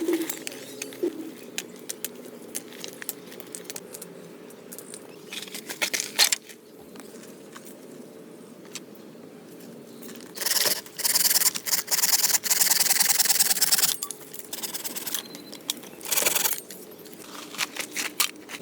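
Hand work at a shelter build: scattered knocks and clicks, with a louder stretch of rough scraping about ten to fourteen seconds in.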